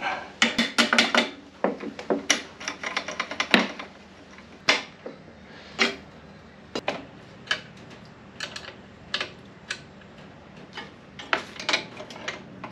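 Hammer tapping a punch against the drum brake hardware on a 60 series Land Cruiser rear axle to knock out small R clips. There are quick runs of sharp metallic taps in the first few seconds, then scattered single clinks of hand tools and loose steel parts, with a few more close together near the end.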